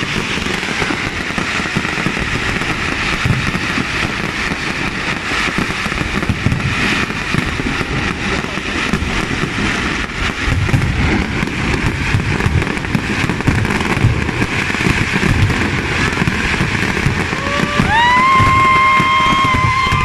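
Aerial fireworks display going off: a dense, continuous run of crackling pops and bangs.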